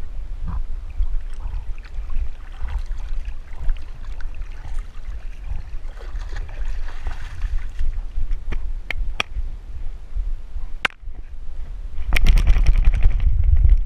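Water sloshing and gurgling around a swimming Labrador and the GoPro housing strapped to her back, over a steady low rumble, with a few sharp knocks. Near the end a louder, rougher rush of noise comes as the dog is out of the water and running.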